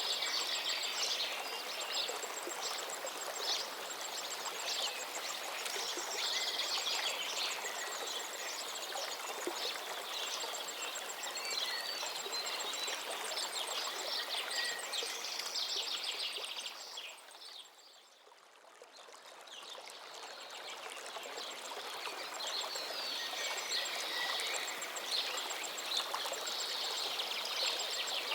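Steady rushing of Duduma waterfall's falling water, with many short high chirping calls over it. About two-thirds through the sound drops away sharply for a couple of seconds, then comes back gradually.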